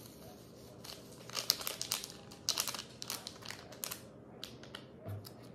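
Ramen seasoning packet crinkling as it is squeezed and shaken to empty the spice into the bowl: a run of quick, irregular crinkles.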